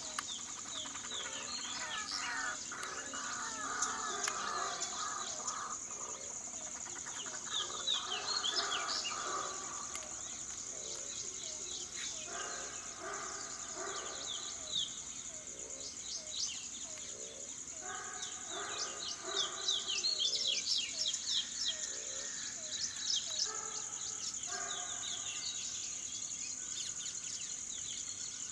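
Birds calling over a steady high-pitched insect drone: many quick, high, falling chirps, and three bouts of lower, repeated notes.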